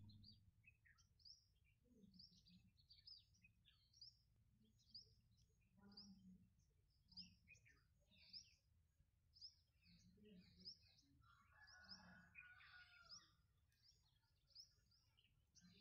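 Faint birdsong: many short, high chirps repeating about once a second, with a louder, lower-pitched sound around twelve seconds in, over a faint low hum.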